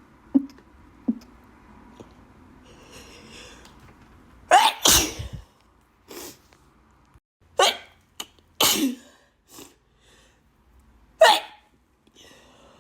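A person sneezing hard over and over, about four loud sneezes with smaller sniffs and breaths between them, the first after a drawn-in breath. This is allergic sneezing.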